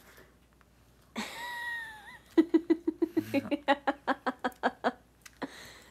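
Laughter in quick repeated bursts, about five a second, lasting a couple of seconds. It follows a short high-pitched whine that wobbles at its end about a second in.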